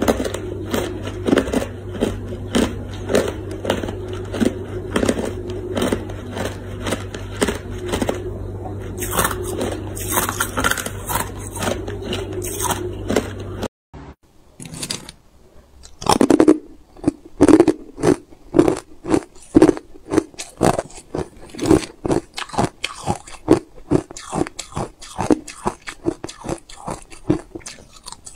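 Hard ice being chewed in the mouth: a steady run of crunches about two a second over a low hum. After a cut about 14 s in, the hum is gone and louder, sharper bites and crunches of hard moulded ice pieces follow at about the same pace.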